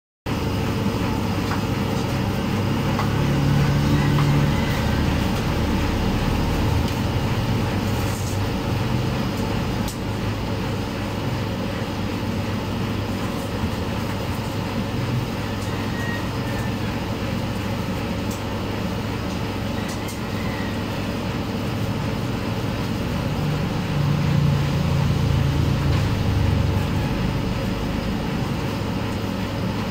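Steady low rumble of motor vehicle engines, growing louder a few seconds in and again near the end.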